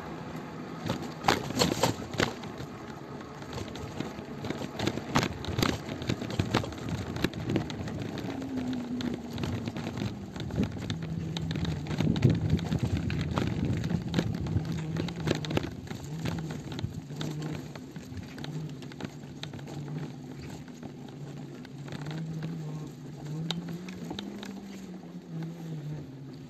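Footsteps on a concrete road with rubbing and knocking from a handheld phone, about two steps a second. From about halfway a low hum comes and goes in short pieces, shifting up and down in pitch.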